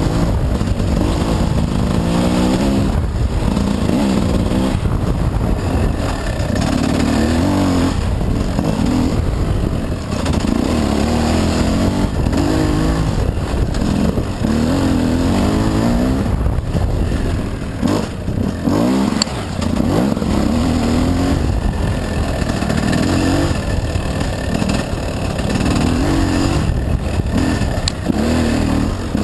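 Gas Gas dirt bike engine revving up and down as it is ridden along a trail, its pitch climbing and dropping again every second or two over a steady low rumble.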